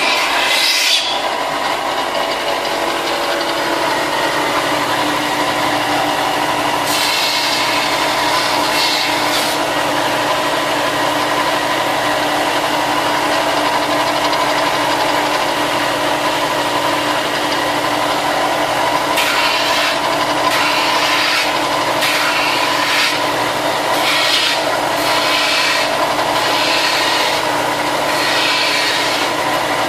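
Electric sander running steadily, with intermittent rasping as the edges of ABS plastic armor pieces are pressed against it. The rasping comes once about seven seconds in, then again and again through the second half.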